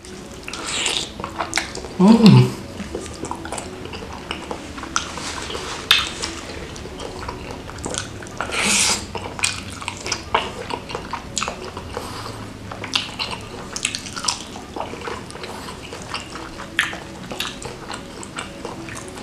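Close-up wet chewing, sucking and lip-smacking of saucy squid head and tentacles, a run of small wet clicks and smacks. There is a louder sound with falling pitch about two seconds in, and a short hissing slurp near the middle.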